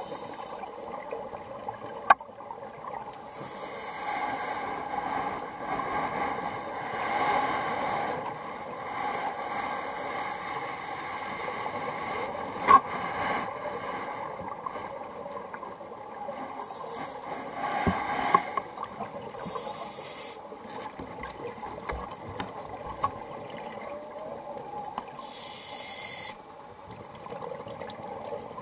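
Scuba diver breathing through a regulator underwater: a hissing inhalation every five or six seconds, with bubbling exhalations between. A few sharp clicks stand out.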